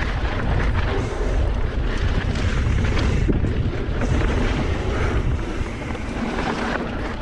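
Wind buffeting a GoPro's microphone as a mountain bike rides along a dirt trail, a steady low rumble, with the faint rattle of the bike and its tyres rolling over dirt and dry leaves.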